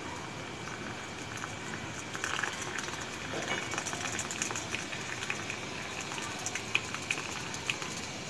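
Sprite poured in a thin stream into a glass over ice cubes, the soda fizzing with many small crackling pops that grow denser about two seconds in.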